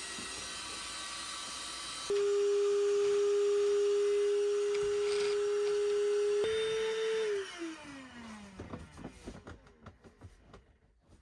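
A small electric motor starts about two seconds in and runs with a steady whine. It steps slightly higher in pitch, then is switched off and winds down with a falling pitch.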